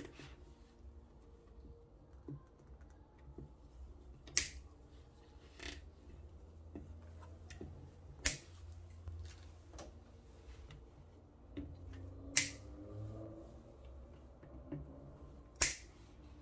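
Diagonal side cutters snipping the tails off cable ties on a wiring harness: five sharp snips a few seconds apart, with fainter clicks between them.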